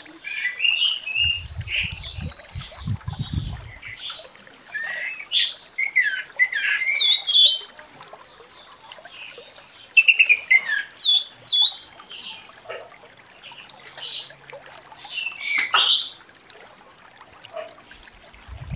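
Orange-headed thrush (anis merah) singing in spurts: quick, varied whistled phrases with sharp notes sliding up and down, broken by short pauses. A low rumbling noise sounds under the song for a few seconds near the start.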